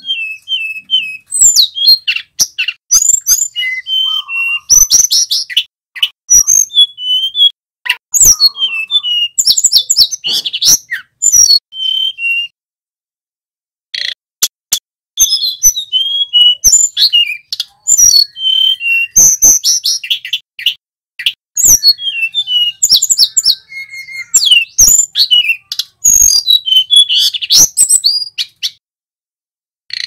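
Tledekan gunung (sulingan) flycatcher singing a rapid, varied song of sharp high chirps, trills and sweeping whistles, with a short pause about halfway through and another near the end.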